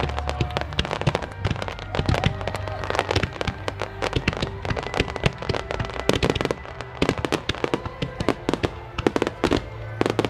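Aerial fireworks bursting and crackling in rapid succession, sharp bangs and many smaller pops overlapping.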